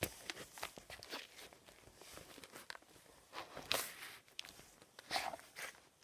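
Nike Air Max 95 sneakers being handled and shifted on a parquet wood floor, making irregular taps, scuffs and rustles. There is a louder scrape nearly four seconds in and another about five seconds in.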